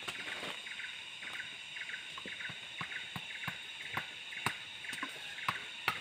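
Rainforest insect chorus: a steady high drone with short trains of chirps repeating every second or so, with scattered sharp clicks and taps from close handling.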